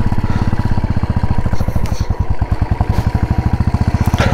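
Motorcycle engine running at low speed as the bike pulls away onto the road, its exhaust beat a steady, rapid, even pulse.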